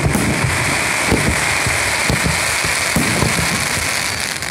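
Fireworks display in a dense barrage: many low booms in quick succession over continuous crackling.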